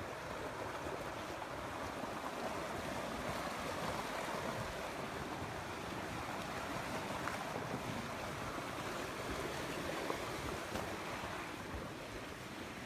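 Steady rushing noise, a little louder through the middle and easing off near the end.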